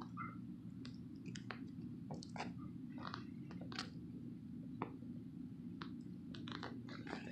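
Rubber sneaker soles shuffling and scuffing on stone paving: a scattering of short, irregular scrapes and clicks over a steady low background hum.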